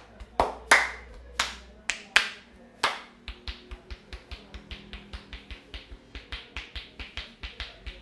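A barber's hands striking a man's head in a percussive head massage: several loud, sharp claps spaced out, then from about three seconds in a fast, even run of lighter taps, about four a second.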